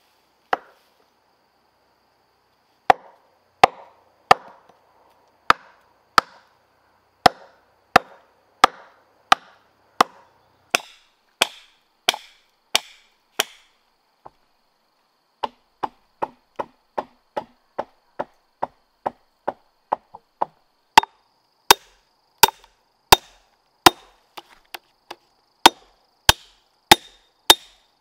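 Wood being chopped by hand with a blade: sharp strikes about one and a half a second, then after a short pause a quicker, lighter run of strikes, then the slower, heavier strokes again.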